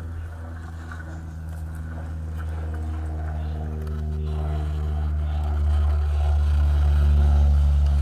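Axial SCX10.3 RC crawler's electric motor and transmission gears whining steadily as the truck crawls over stones, getting louder as it comes closer.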